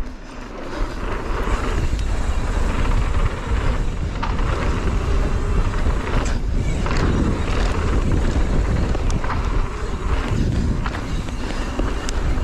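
Mountain bike rolling along a dirt trail at speed: steady rushing wind on the helmet-mounted microphone over the hum of knobby tyres on packed dirt, with a few sharp clicks and rattles from the bike.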